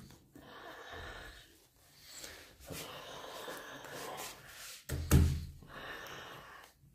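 A man's breathy, half-whispered vocal sounds in short bursts about a second long, with a loud low thump about five seconds in.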